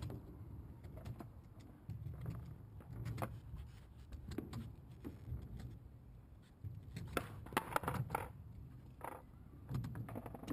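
Kick scooter rolling on a skatepark ramp, its wheels and deck rattling and clacking, with a run of sharp clacks about seven to eight and a half seconds in, over a low steady rumble.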